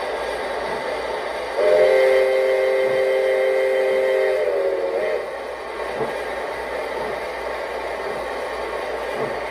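Whistle of a gauge 1 model of a DB class 01.10 steam locomotive, sounding a chord of several steady tones. It starts about a second and a half in and lasts about three and a half seconds, its pitch sagging slightly just before it cuts off. A steady hiss from the running model continues underneath.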